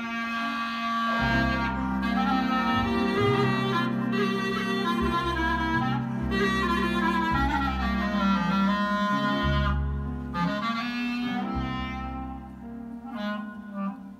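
Klezmer trio playing live: clarinet carries the melody over piano and double bass, the bass entering about a second in. Near the end the music drops in level and thins out.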